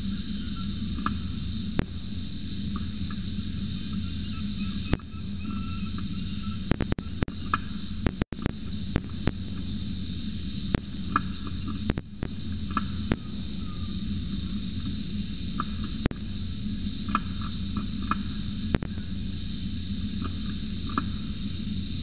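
Cicadas droning in a steady, high-pitched chorus, with a low steady hum underneath and scattered sharp clicks and knocks, thickest around the middle.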